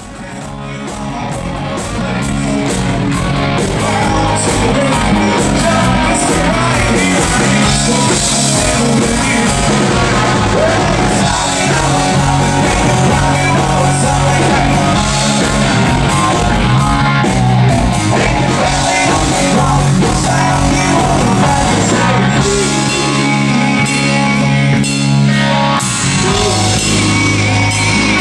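Rock band playing live: electric guitars and drum kit with a lead vocalist singing, fading in over the first couple of seconds.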